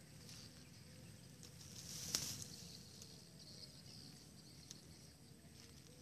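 Quiet grassland ambience: a faint steady high insect buzz, with light rustling and ticks from handling the snare nooses among dry grass, and one sharper crackle about two seconds in.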